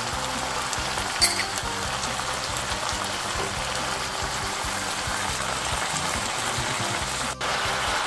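Green onions frying in a stainless steel pan, a steady sizzling hiss, with a short tap about a second in and a momentary break near the end.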